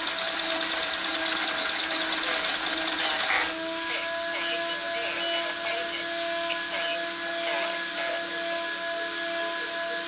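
XRAY GTX8 electric-conversion RC car's motor and drivetrain spinning with the wheels off the ground, powered only by a 16-farad supercapacitor with the battery unplugged. It makes a loud, fast pulsing whir that cuts back sharply about three and a half seconds in to a quieter, steady whining hum.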